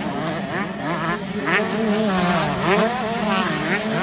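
Several 125cc two-stroke motocross bikes racing together, their engines overlapping and repeatedly revving up and dropping back in pitch.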